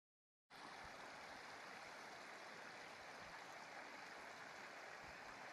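Total silence for about half a second, then the faint, steady sound of a small stream's running water.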